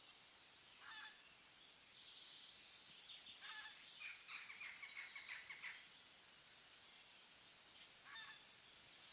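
Faint forest ambience with birds calling: a few short calls, and a quick run of repeated notes in the middle, over a soft steady hiss.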